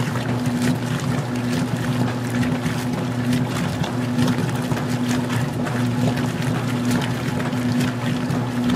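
Magic Chef 20-pound washer agitating its load in the wash: a steady motor hum that drops out briefly every second or so, over water sloshing and splashing in the tub.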